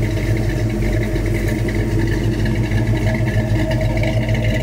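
Chevy 350 small-block V8 with a mild cam running steadily through Flowmaster mufflers, a low, even exhaust note.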